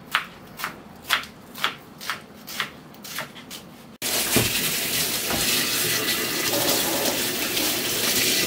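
A knife slicing on a cutting board, about two strokes a second. Then, after a sudden cut about four seconds in, a kitchen tap runs steadily into a stainless-steel sink as a green onion is rinsed under it; the running water is the louder sound.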